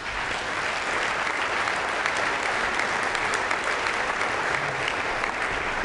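Large audience applauding, the clapping starting suddenly and holding steady.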